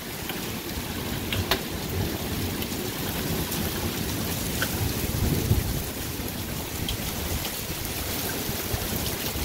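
Thunderstorm noise: steady rain with gusting wind and a low rumble that swells about five seconds in.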